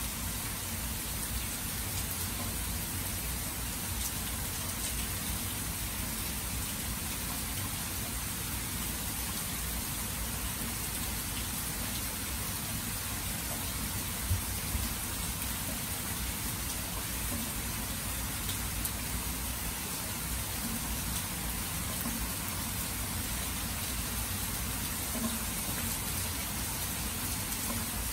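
Steady rain falling on grass and open water: an even, unbroken hiss with a low rumble beneath, and a couple of brief louder taps about halfway through.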